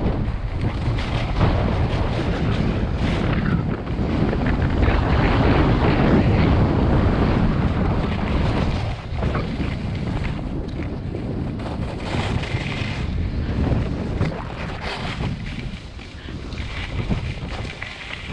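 Wind buffeting the camera's microphone: a loud, steady rushing noise, heaviest in the low end, that eases somewhat in the last few seconds.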